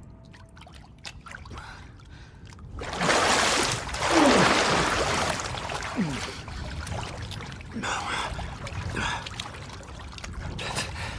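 Water splashing loudly as people break the surface, about three seconds in, followed by gasping breaths and water trickling.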